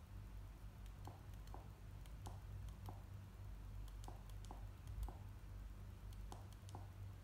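Faint short clicks, often in close pairs, about one or two a second, as an XGIMI H1 projector's menus are stepped through, over a steady low hum.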